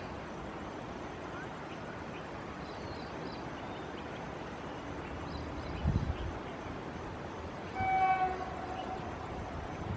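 Horn of an approaching WAP-5 electric locomotive sounding one blast about a second long, about eight seconds in. Wind rumbles on the microphone throughout.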